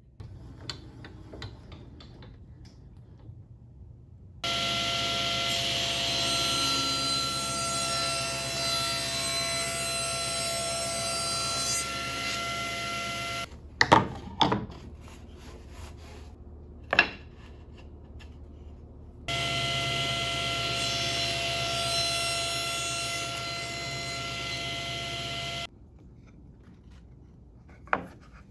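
Table saw running with a steady whine for about nine seconds, cutting off abruptly, then running again for about six seconds. Between the two runs come a few sharp wooden knocks as a plywood miter sled is handled on the saw table, and near the end a single click.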